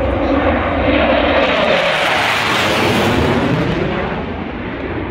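Two CF-18 Hornet fighter jets passing overhead. Their twin-engine jet noise swells to a loud rushing peak about two and a half seconds in, then fades away.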